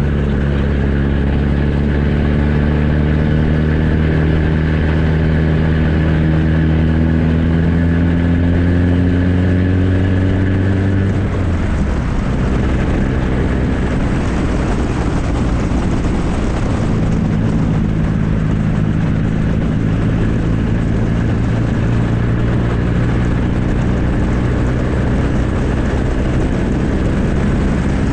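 Straight-piped 2.3-litre four-cylinder engine of a 1994 Ford Ranger under way, its exhaust note climbing slowly in pitch for about eleven seconds. The note then breaks into a rougher, noisier stretch and settles into a steady drone about six seconds later.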